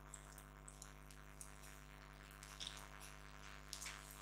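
Near silence: faint short scratches of a felt-tip marker drawn along paper while tracing a pattern outline, over a low steady hum.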